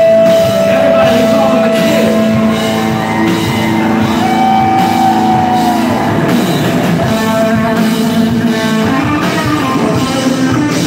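Live rock band playing loud: electric guitar and drum kit, with long held notes ringing over the rhythm. The sound cuts off abruptly at the very end.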